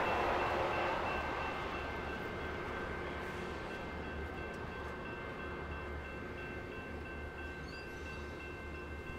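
VIA Rail Siemens Venture passenger train rolling away, its rumble on the rails fading steadily. A level-crossing electronic bell keeps dinging in an even rhythm over it.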